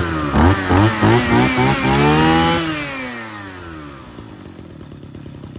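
Mitsubishi TL33 brush cutter's 33 cc two-stroke engine revving up and down several times, then its pitch falls away about three seconds in and it settles to a steady idle, while its carburettor is being adjusted with a screwdriver.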